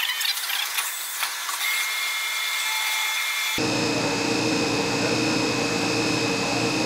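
CNC milling machine's end mill cutting white plastic stock. At first it is a high whine with scattered clicks, and about three and a half seconds in it changes abruptly to a steadier, fuller spindle whine with several held tones over cutting noise.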